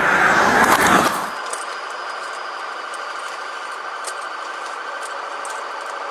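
A car driving close past with a rush of tyre and engine noise that swells and cuts off abruptly about a second in. It is followed by a steady warbling tone from a patrol car's siren, heard from inside the pursuing car.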